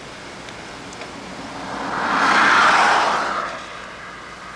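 A vehicle passing by on the highway: a swell of road noise that rises about a second in, peaks near the middle and fades away, over a steady hiss.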